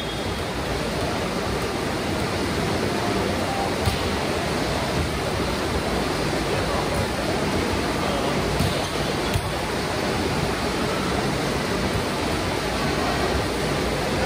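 Steady rushing noise of a sports hall during a volleyball rally, with indistinct voices and a few sharp knocks of the ball being played, about four seconds in and again about nine and a half seconds in.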